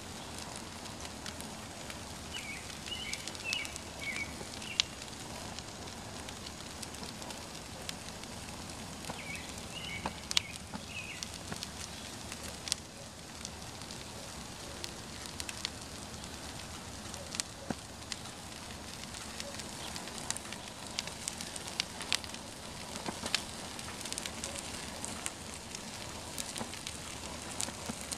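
A paper poster soaked in barbecue sauce, Pepsi and Everclear burning on a grill: a steady hiss of small flames with frequent crackles and pops.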